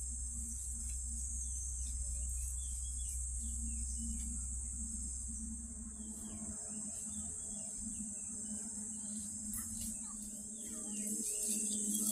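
Steady, high-pitched drone of an insect chorus, with a low rumble through the first half.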